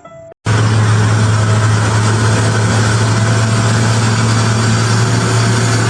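Engine of a heavy machine running steadily at an even, unchanging pitch, starting abruptly about half a second in.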